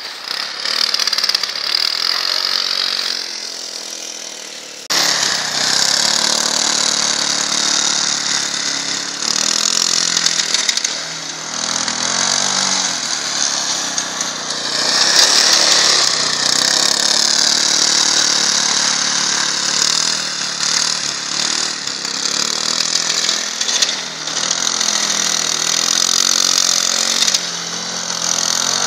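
Small engine of a Leshy 2x2M two-wheel-drive fat-tyre motorcycle running and revving up and down as it is ridden through snow. The sound jumps abruptly louder about five seconds in.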